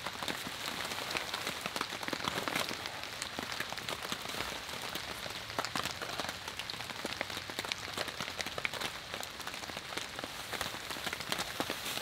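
Steady rain falling on the tarp overhead: a constant hiss with many separate drop hits throughout.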